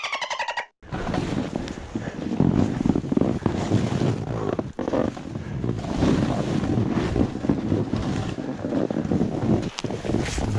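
A snowboard sliding and scraping through soft snow, heard as a rough, uneven rushing hiss, with wind buffeting the microphone.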